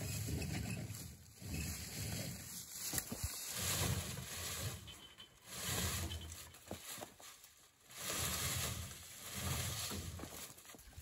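Footsteps crunching and rustling through deep dry fallen leaves on a slope, in uneven surges with short pauses between them.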